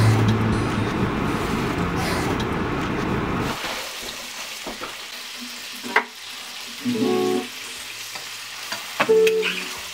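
Steady hiss of a car driving on a wet road in the rain, heard from inside, with a low rumble. It cuts off about three and a half seconds in. After that, an acoustic guitar is picked: a few separate notes and chords with pauses between them.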